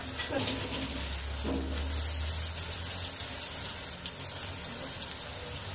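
Onion bhajiya deep-frying in a pan of hot oil: a steady hiss of bubbling oil with fine crackling throughout.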